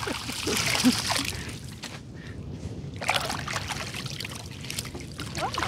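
Water splashing and trickling in bursts, loudest about a second in and again around three seconds in, as a gill net is paid out over the side of a boat.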